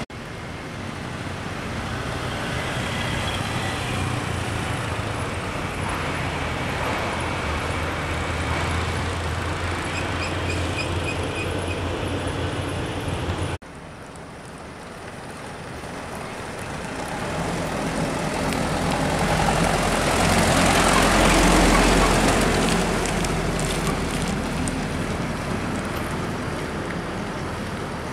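Road traffic noise with a steady hum. It breaks off suddenly about halfway, then swells and fades as a vehicle passes, loudest about two-thirds of the way through.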